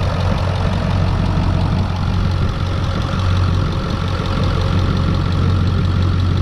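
Ford 7.3-litre Power Stroke turbo-diesel V8 idling steadily with diesel clatter, heard close in the open engine bay while the A/C runs on max.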